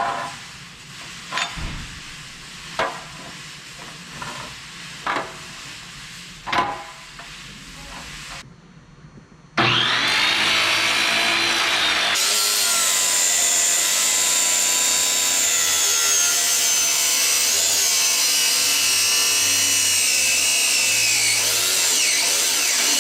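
A few light knocks about every second and a half, then from about ten seconds in a power tool cutting metal tubing, running loud and steady with its pitch wavering under load as the tube's angle is trimmed.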